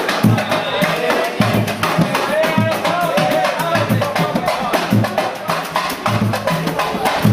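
Brazilian pagode played live: singing over fast, dense hand percussion, with a deep drum thumping about once a second.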